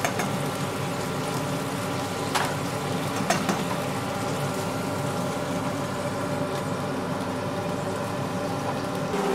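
Hake steak simmering in garlic, olive oil and white wine in a frying pan, a steady sizzle with a couple of small pops, over a steady hum.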